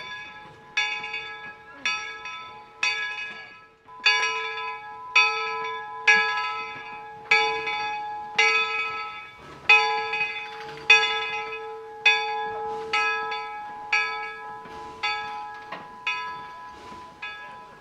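Steam locomotive bell on the NCRR No. 17 "York" 4-4-0 rung steadily, about one stroke a second, each stroke ringing on into the next. It is the warning bell rung while the engine is moving.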